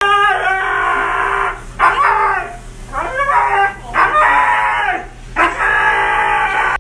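A wet husky howling and yowling while being bathed: five long, loud, drawn-out calls whose pitch bends up and down, with short breaks between them.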